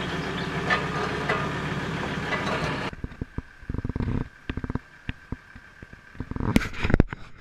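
Farmall Super A tractor engine idling steadily, then cut off abruptly about three seconds in. Light scattered clicks and knocks of metal parts being handled follow, with a louder knock near the end.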